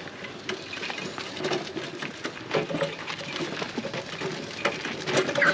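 Irregular clatter and knocking of farm equipment being handled and moved, with a few brief bird chirps.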